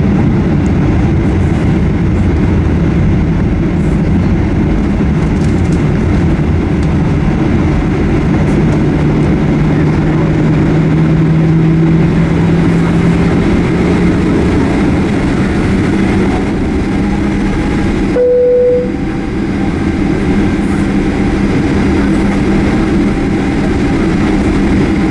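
Cabin noise of a Boeing 737-800 taxiing, its CFM56 turbofan engines at low power: a steady rumble with a low hum. A short single tone sounds about 18 seconds in.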